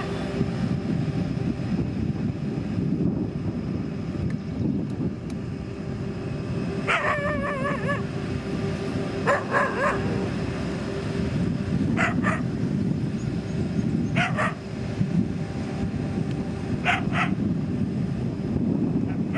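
A motor grader's diesel engine running steadily under load, with a dog barking about six times over it, one of the calls drawn out and wavering.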